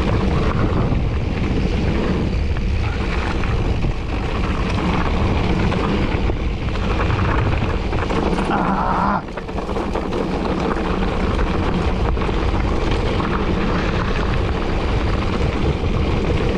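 Wind buffeting the microphone and tyres rumbling over a rough trail on a mountain-bike descent, a steady noise that dips briefly about nine seconds in.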